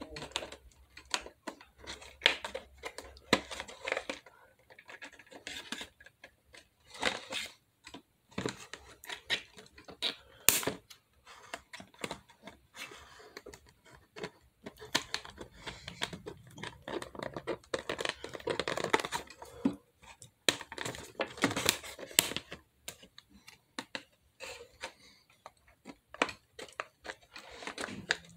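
Scissors snipping and crunching through a toy's plastic blister pack and cardboard backing, with irregular sharp cuts and the crackle of the plastic being handled.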